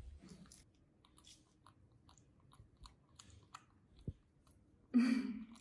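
Mandarin orange peel being torn and pulled off by hand, a run of soft crackles and small tearing clicks. A brief, louder low hum comes near the end.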